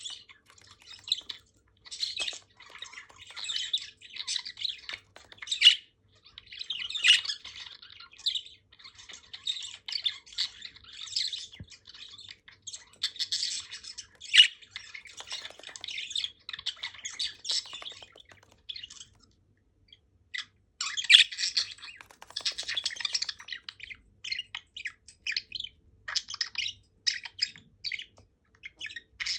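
Several budgerigars chirping and chattering in fast, irregular bursts, with a pause of about two seconds a little past the middle.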